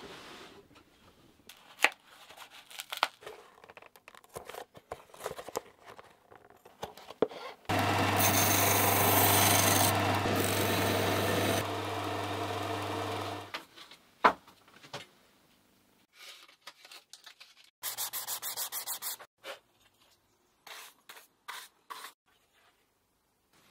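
A bench disc sander runs with a steady motor hum while a hexagonal wooden concertina end frame is held against the disc and sanded for about four seconds; the hum carries on briefly after the sanding stops. Before it come scattered taps and clicks of handwork on wood, and later a quick, even run of clicks lasting about a second and a half.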